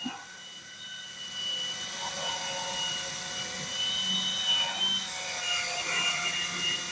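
Cordless drill running at low speed, spinning an intake valve chucked by its stem while a green Scotch-Brite pad is held around the valve head to scrub off baked-on carbon. The motor gives a steady whine that wavers a little in pitch, with the pad rubbing on the turning valve.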